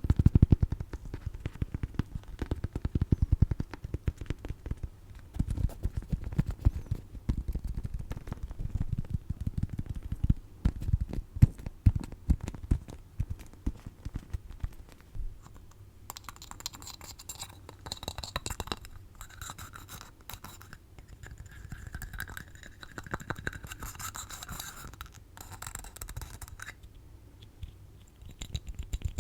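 Close-miked ASMR scratching and tapping on small cat-themed goods, a dense run of rapid strokes. About halfway through the sound turns brighter and higher, a scraping, rustling texture that stops shortly before the end.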